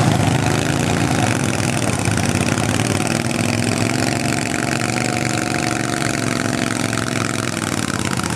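Garden tractor engine running hard under load, pulling a weight sled slowly along a pulling track. Its pitch rises a little about halfway and sags near the end as the pull bogs down.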